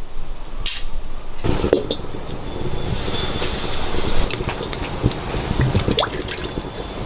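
Fingers squelching and mixing a wet spice paste in a stainless steel bowl, with small clicks and scrapes on the metal, starting about a second and a half in. Near the end, water trickles from a steel tumbler into the bowl while the mixing goes on.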